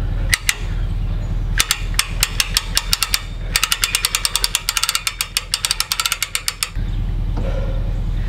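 Hand-cranked trailer winch ratchet clicking as the airboat is winched up onto the trailer. A few clicks come at first, then a quicker string, then a fast run of about ten clicks a second from about three and a half seconds in, which stops about a second and a half before the end. A steady low hum runs underneath.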